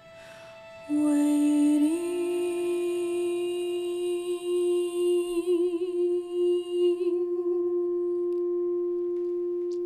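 Contemporary chamber ensemble with live electronics holding a long, hum-like tone that enters about a second in, steps up slightly in pitch and is sustained with a slight waver, over fainter steady higher tones. A high shimmer above it drops out about seven seconds in.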